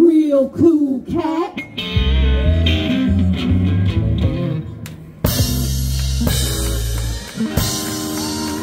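Rock-and-roll music with guitar and drums. A voice trails off in the first second or so; the band comes in about two seconds in, and after a short dip it starts again loudly about five seconds in.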